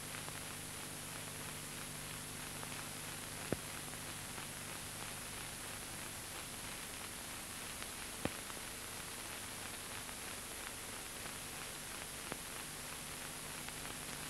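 Steady hiss and mains hum of an old film soundtrack with no narration, broken by three sharp clicks spread a few seconds apart.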